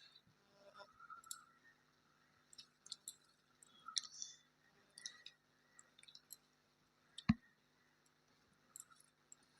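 Faint scattered clicks and smacks of someone eating at close range, with one sharp knock about seven seconds in.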